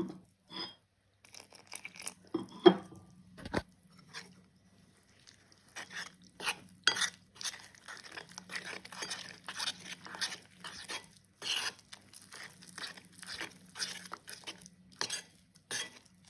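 Metal spoon stirring a thick cornflour-and-flour batter in a bowl, wet scraping strokes with the spoon knocking against the bowl, fast and irregular. A few separate knocks come in the first three seconds, the loudest about two and a half seconds in, and the stirring gets steady and busy from about five seconds on.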